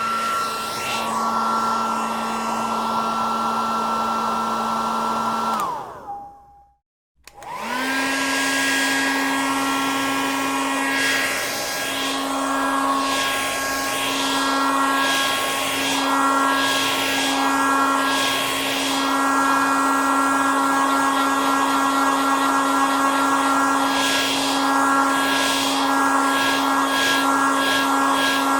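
Electric hair dryer running with a steady motor hum and rush of air. About six seconds in it is switched off and its pitch drops as it winds down. After about a second of silence it starts again, rises in pitch and runs steadily at a slightly higher pitch.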